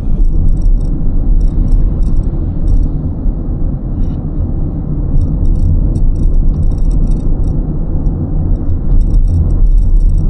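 Strong gusting wind buffeting the microphone, a loud, unsteady low rumble, with small clicking rattles coming and going throughout.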